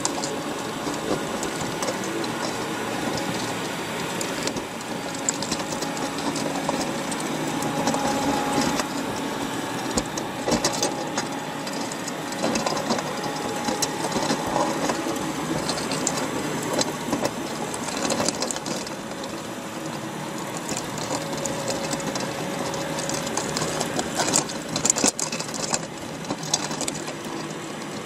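Underwater crackle of crabs crowding a wire crab pot: rapid, dense clicking and scraping of shells and claws on each other and on the wire, with a burst of sharper clicks near the end.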